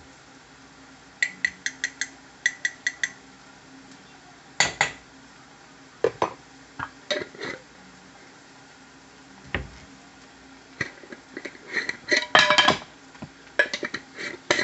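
A metal spoon clinking and knocking against cookware while ground coriander is spooned into the frying pan. It opens with two quick runs of about five light ringing taps each, then scattered knocks and clinks.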